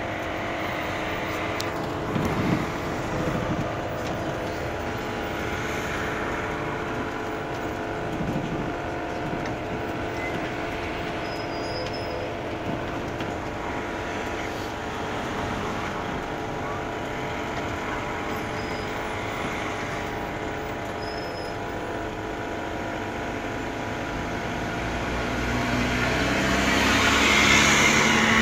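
Engine and road noise heard inside the cab of a heavy vehicle driving in slow traffic, with a steady engine hum, swelling louder near the end as the engine note climbs.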